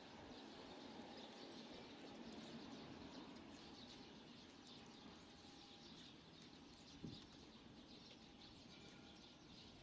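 Near silence: faint outdoor background noise, with one soft click about seven seconds in.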